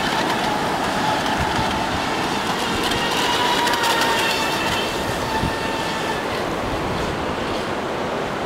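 Atomik Barbwire mini RC speed boat running flat out, its electric motor giving a steady high whine over the hiss of water spray from the hull.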